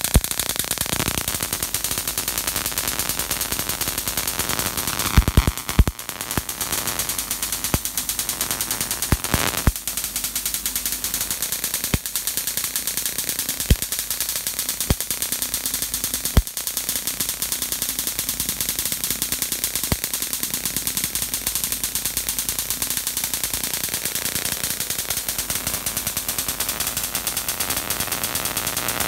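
Homemade high-voltage supply arcing: a fast, continuous crackle of small sparks, with sharp snaps at irregular moments, several close together about five to six seconds in. The builder puts the crackling down to feedback into the transformers and capacitors.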